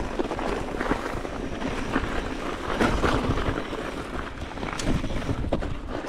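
Mountain bike rolling over a rough, rutted dirt trail: tyre rumble with irregular knocks and rattles from the bike, and wind on the microphone.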